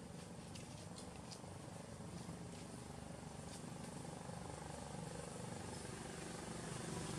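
A distant motor running with a steady low hum, slowly growing louder, with a few faint ticks in the first half.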